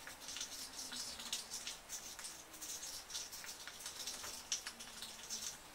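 A spoon stirring a thick vinyl glue mixture in a plastic cup, giving faint, quick scraping and clicking strokes, several a second.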